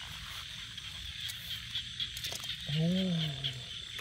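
Night chorus of frogs and insects, a steady high-pitched trilling. About three seconds in, one low call rises and falls in pitch over most of a second, louder than the chorus.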